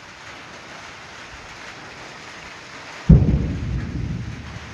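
Steady hiss of rain. About three seconds in comes a sudden loud clap of thunder, a deep rumble that fades over the next second and a half.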